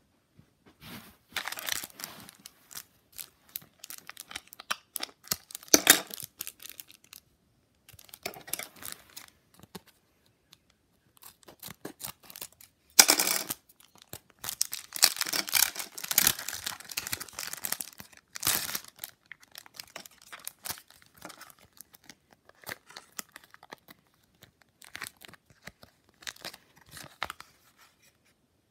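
Thin clear plastic wrapping crinkling and tearing as it is pulled open by hand, in irregular spurts of rustling with short pauses, and a sharp, loud crackle about 13 seconds in.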